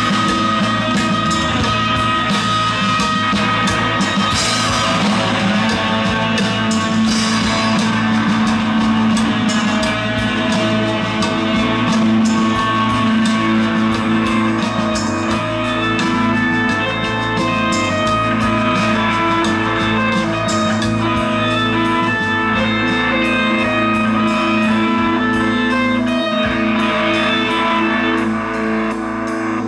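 Rock band playing live: overdriven electric guitars holding long notes over bass and a drum kit with steady cymbal hits. The playing thins out near the end.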